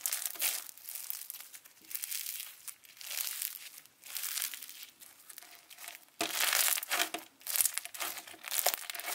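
Crunchy slime with candy corn sprinkles squeezed and kneaded by hand, crackling and crunching in repeated waves as it is worked, loudest about six seconds in.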